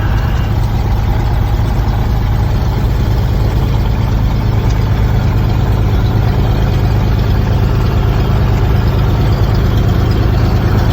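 1998 Cessna 182S's fuel-injected Lycoming IO-540 six-cylinder engine and propeller idling steadily just after a cold start, still warming up.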